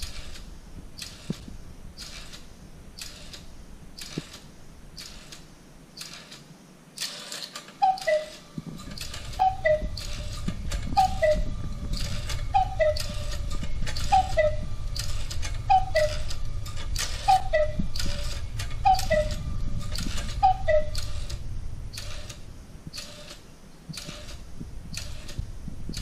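Meccano-built electromechanical cuckoo clock striking nine o'clock. Its bellows and pipes give nine two-note cuckoo calls, falling in pitch, about one every one and a half seconds, over the low running of the strike mechanism. The clock's ticking goes on steadily throughout.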